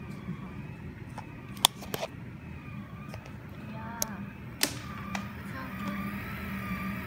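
Anycubic Kossel delta 3D printer printing: stepper motors whining with a wavering pitch as the carriages move, over a steady low fan hum. A few sharp clicks break in, the loudest about a second and a half in.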